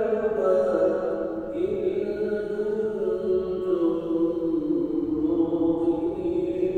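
Islamic devotional chanting: a solo voice holds one long melismatic phrase that slides slowly up and down in steps, over a steady low drone.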